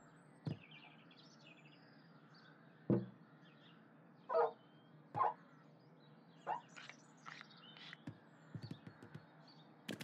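Faint birds chirping in the background. Through it come a couple of soft thumps early on, then a few short squeaks and light clicks.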